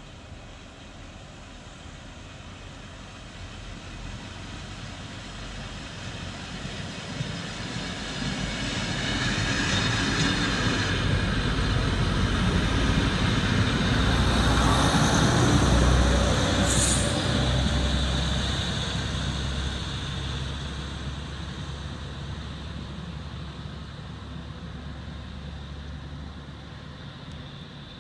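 Fiat ALn 668 diesel railcar with its trailer coach passing: the diesel engine and the wheels on the rails grow louder as it comes in, peak as it goes by, then fade away. A brief high squeal comes just after it passes.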